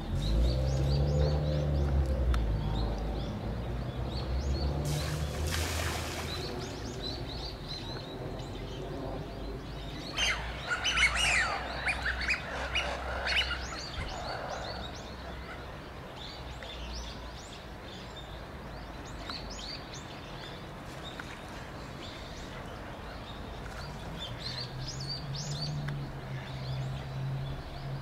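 Small birds chirping with short high calls throughout, with a louder, busier run of calls about ten seconds in. A low hum runs underneath at the start and again near the end.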